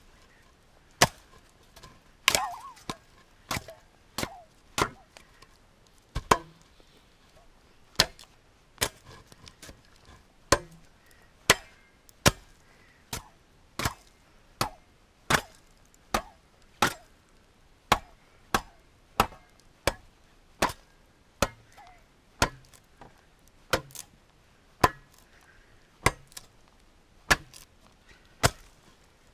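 Wood being hewed with the sharpened back edge of a long handsaw used as a cleaver: a steady series of sharp chopping strikes, a little more than one a second.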